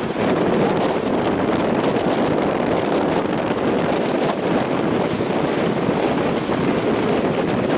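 Strong wind blowing on the microphone in a steady loud rush, over the noise of heavy surf.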